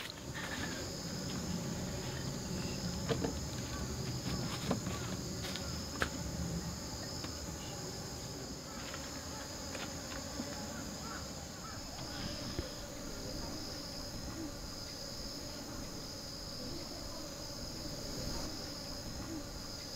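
Steady high-pitched chirring of insects, with a few light knocks and clicks.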